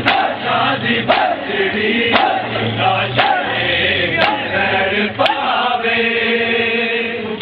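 A large group of men chanting a mourning noha in unison, punctuated by sharp unison chest-beating (matam) strikes about once a second. The strikes stop about five seconds in while the chant holds a long note.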